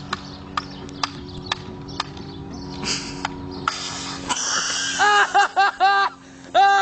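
Sharp clicks about twice a second over a steady low hum, with a short hiss about three seconds in and a longer one about four seconds in. About five seconds in, a person breaks into rapid, high-pitched snickering laughter.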